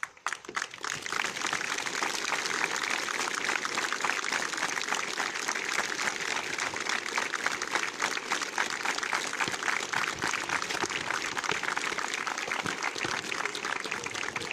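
A crowd of cadets on parade applauding: dense, steady clapping that starts about half a second in and eases slightly near the end.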